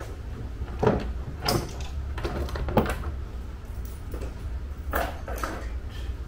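A handful of short knocks and clatters from plastic frunk trim and parts being handled and set down, spaced a second or more apart, over a steady low hum.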